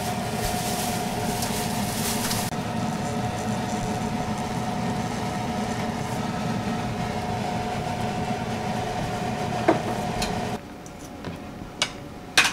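Steady mechanical hum with a constant whine, typical of a kitchen range-hood fan running over the stove. It cuts out about ten and a half seconds in, leaving a few light clinks.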